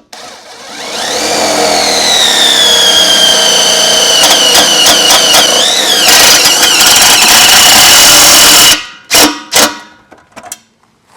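Power drill driving a metal self-tapping screw: the motor whines up over about a second and runs steadily for several seconds, stuttering a few times as the screw bites. It cuts off suddenly near the end, then gives two short bursts to snug the screw down.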